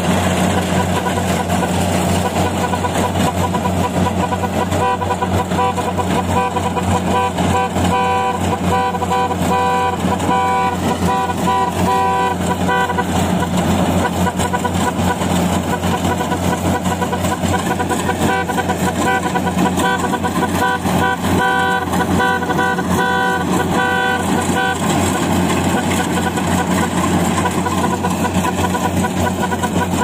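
Kubota rice combine harvester running steadily as it harvests, its engine making a constant low hum. Twice a repeated high beeping pulses on and off over it for several seconds.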